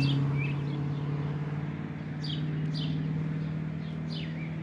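A steady engine hum that steps slightly higher in pitch about halfway through, with songbirds chirping several short notes over it.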